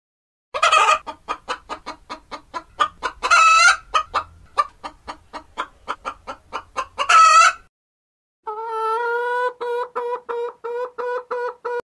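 Hens clucking rapidly, about four clucks a second, broken by three louder squawks. After a short gap, a steady-pitched call repeats in quick pulses until the end.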